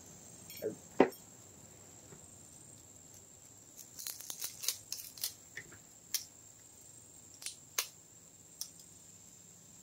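Brake caliper and pads being handled by hand: scattered sharp metal clicks and taps, two near the start, a quick run of them about four to five seconds in, then a few single ones. A faint steady high-pitched tone runs underneath.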